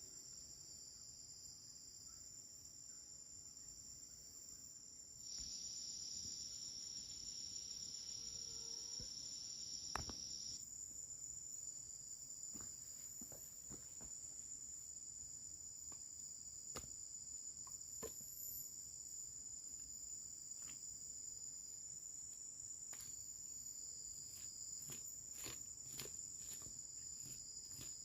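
Forest insect chorus: a steady high-pitched buzzing and chirring that grows louder and fuller from about five to ten seconds in. Scattered small clicks and knocks sound over it, the sharpest about ten seconds in.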